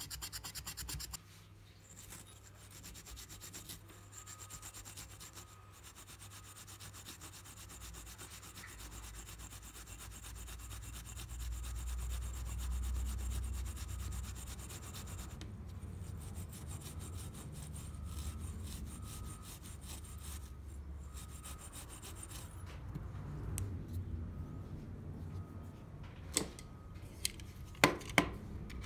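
Continuous rubbing and scraping over a low hum, louder in the middle, with a few sharp clicks near the end.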